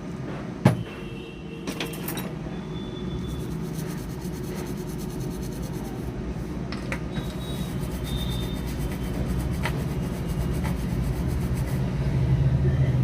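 Scratchy rubbing and scraping on a phone's circuit board as the charging-jack area is cleaned, with a sharp click about half a second in and small ticks over a steady low hum that slowly grows louder.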